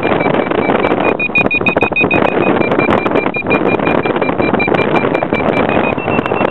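Paragliding variometer (Aircotec Piccolo) beeping quickly at a steady high pitch, stepping slightly higher near the end, the climb tone that signals the glider is rising in lift. Wind rushes over the microphone throughout.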